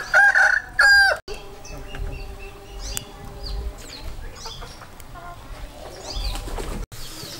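A rooster crows for about a second, the call ending on a falling note. Faint scattered bird chirps follow.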